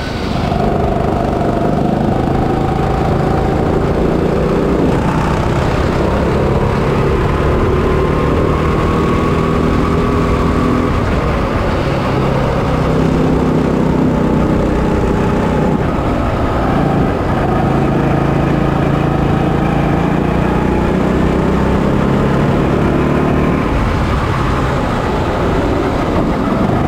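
Single-cylinder 200cc four-stroke kart engine (Honda GX200) running at race speed, heard from on board. Its pitch dips and climbs again several times as the throttle comes off and back on through the corners.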